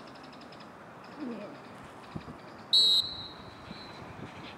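A sports whistle blown once in a short, sharp blast about three seconds in, the signal that starts a sprint. Faint rapid bird chirping comes earlier.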